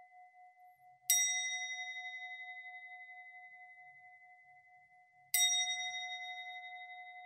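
A singing bowl struck twice, about four seconds apart. Each strike rings out in a long, wavering fade. The ringing closes the guided meditation.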